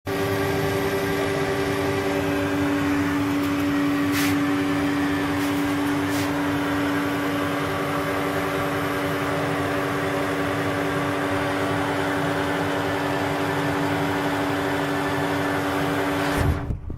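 Electric fan motor of a homemade air conditioner running with a steady hum and a whoosh of air, holding two steady tones; the sound changes abruptly near the end.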